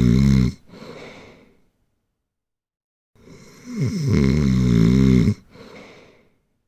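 Loud snoring in a regular breathing cycle. A snore on the in-breath ends just after the start and is followed by a softer out-breath. After a pause of about a second and a half, a second loud snore comes about three seconds in, followed by another softer out-breath.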